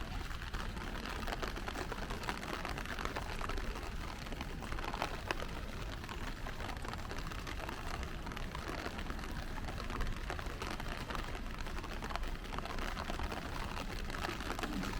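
Steady rain pattering on wet city streets, with a low rumble underneath.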